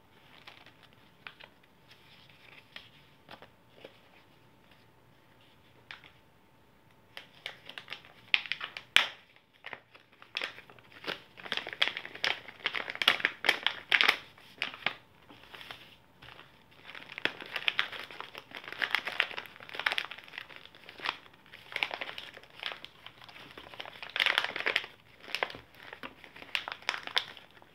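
Packaging pouches crinkling as they are handled and opened by hand. A few faint taps at first, then steady crinkling from about seven seconds in, with one sharp click near nine seconds.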